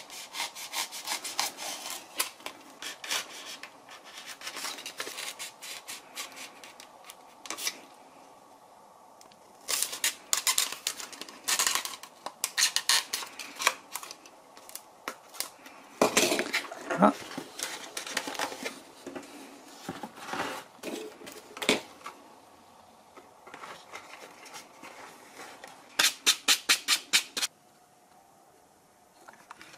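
Utility knife blade cutting and scraping a foam nose cone in short, irregular strokes, with a quick run of about eight strokes near the end.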